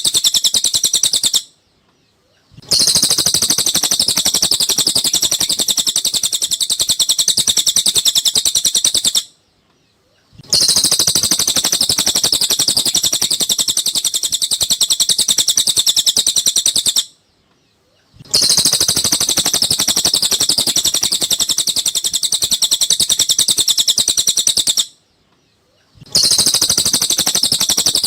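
Cililin songbird singing a fast, high, unbroken chattering song. It comes in stretches of about seven seconds, each broken by a silence of about a second.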